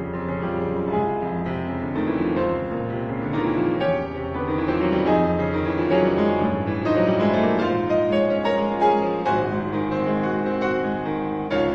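Background piano music, a steady run of notes with no speech.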